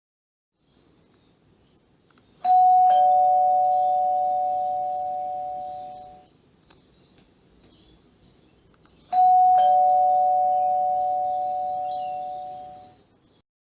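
Two-tone ding-dong doorbell chime rung twice, about seven seconds apart. Each ring is a higher note followed a half-second later by a lower one, both ringing on and fading out over about three and a half seconds.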